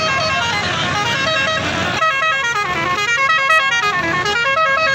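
Musical vehicle horn playing a fast tune of short stepped notes over and over, over a low rumble that drops away about two seconds in.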